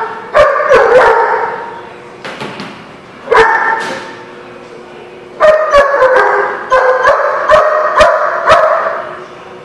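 A dog barking in groups: three quick barks at the start, a single bark a little after three seconds, then a run of about eight barks that ends near the end. Each bark echoes.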